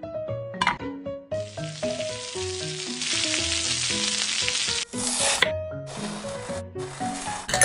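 Pork belly slices sizzling on a cast-iron grill pan, a steady hiss lasting about three and a half seconds, followed by three shorter bursts of hiss. Light background music with a bouncy melody plays throughout.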